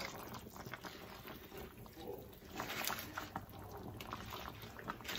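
A pot of chicken soup bubbling faintly at a simmer, with soft splashes and small clicks as handfuls of leafy greens are dropped into the broth.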